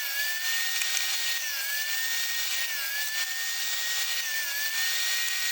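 Bench-style table saw running and cutting wood, its electric motor whining at a steady pitch that sags briefly about four times as the blade takes the load of the cut.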